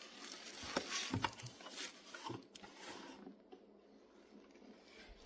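Keyboard packaging being handled as the box is opened: a few light knocks and rustles in the first couple of seconds, then faint handling sounds.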